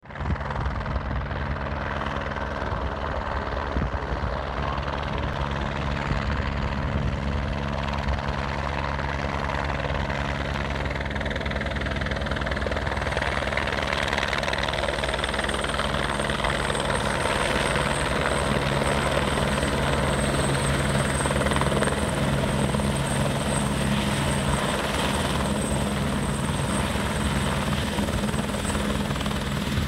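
Light helicopter approaching and landing: a steady rotor beat and engine noise that grow louder as it comes close, with a thin high whine joining about halfway through and holding on.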